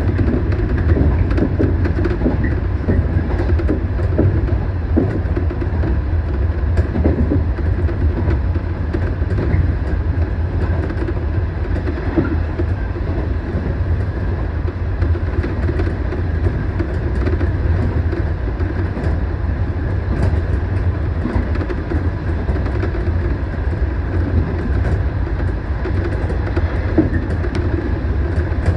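115 series electric train running at speed, heard from inside the driver's cab: a steady low rumble of wheels on rail, with scattered light clicks.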